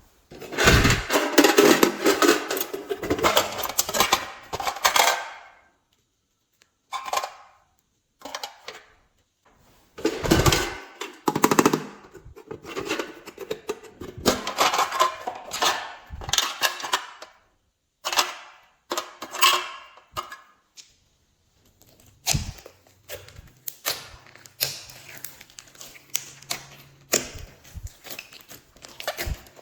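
Glossy slime being squished and kneaded by hand, giving off rapid crackling and popping of trapped air in several bursts of a few seconds each with short pauses between them.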